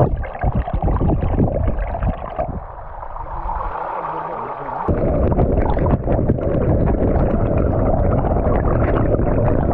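Muffled gurgling and churning of river water as heard by a camera held underwater in a shallow rocky pool. The sound changes abruptly about two and a half seconds in and again about five seconds in.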